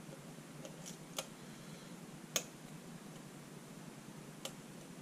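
Lock pick and tension wrench working the pins of a pin-tumbler challenge lock: a few sparse, sharp metallic clicks, the loudest about two and a half seconds in.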